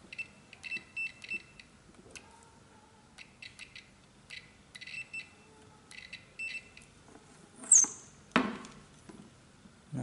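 Multimeter continuity buzzer beeping in short, broken pulses as its probes touch the horn contact plates and hub of a steering wheel; each beep signals a closed circuit between the points being probed. Near the end there is a loud short high chirp falling in pitch, then a brief thump.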